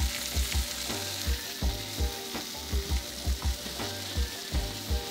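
Food sizzling in a pan on the stove, a steady hiss, under background music with a steady beat.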